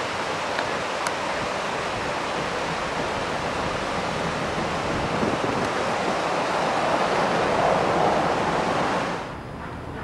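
Steady rushing of river rapids, with no distinct events, cutting off abruptly about nine seconds in to a much quieter background.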